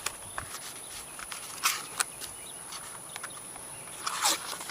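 Outdoor ambience with a steady high-pitched insect drone, overlaid by small clicks and three short rustling bursts, the strongest near the end.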